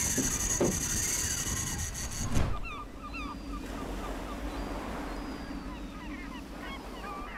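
Sound on a fishing boat at sea: a loud rushing hiss for about the first two and a half seconds, then a steady low hum with birds calling over it in short chirps.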